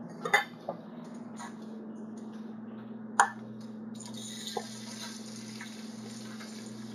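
Knocks and clicks of a plate and spatula against a frying pan, loudest a sharp clack about three seconds in as shrimp are tipped into the pan, then a steady sizzle of the shrimp frying in hot oil from about a second later, over a constant low hum.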